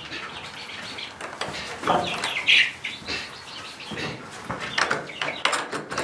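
Young chickens (chicks) peeping, mixed with sharp metal clicks and knocks from a slide latch being fitted and worked on a wooden door frame.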